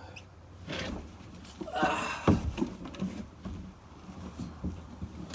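Rustling and handling noise inside a car cabin, with one sharp thump about two seconds in, followed by a few soft knocks.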